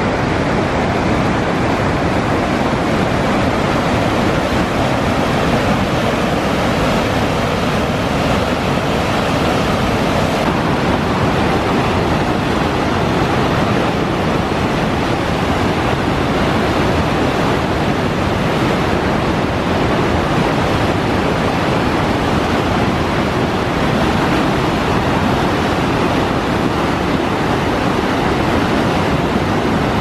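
River whitewater pouring over a waterfall and boulder rapids in high flow: a loud, steady rushing with no breaks.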